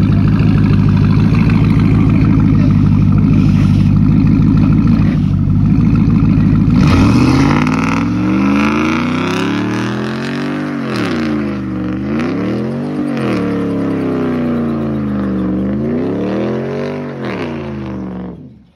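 Pickup truck's engine doing a burnout: first held at high revs while the rear tyre spins and smokes, then revved up and down several times. It cuts off suddenly near the end.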